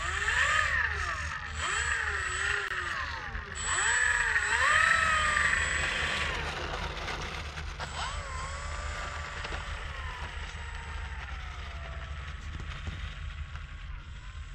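Electric motor and propeller of an RC model plane (Dynam Cessna 188, fitted with a larger prop) whining, its pitch swooping up and down with short throttle bursts for the first six seconds or so. It then holds a steadier note that slowly drops and fades as the plane taxis away.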